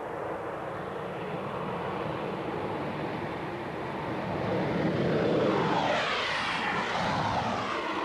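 Avro Vulcan bomber taking off, its four Rolls-Royce Olympus turbojets at full power. The jet noise grows louder to its loudest about five seconds in as the aircraft lifts off and climbs past, then wavers in pitch as it climbs away.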